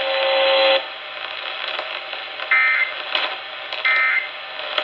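Emergency Alert System broadcast over radio: a steady tone cuts off less than a second in, then two short, buzzing end-of-message data bursts come about a second and a half apart over steady radio hiss. They mark the close of the severe thunderstorm warning.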